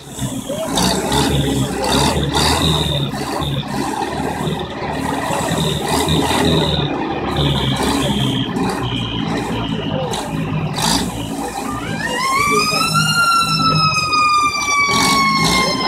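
A tractor engine running. About twelve seconds in, a siren winds up to its top pitch within about a second, then slowly winds down.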